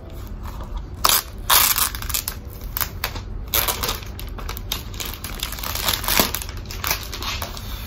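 Clear plastic protective wrap on a new MacBook Air crinkling and crackling in several loud bursts as it is peeled off the laptop.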